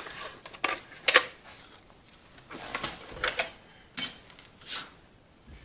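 Irregular clicks, knocks and light clatter of a hard plastic instrument-cluster housing being handled, with a sharp clink about four seconds in as metal hand tools are picked up from a pile.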